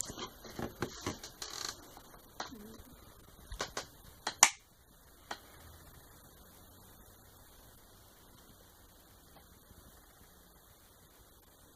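A quick run of sharp clicks and snaps over the first five seconds or so, the loudest about four and a half seconds in, then only a faint steady room hum.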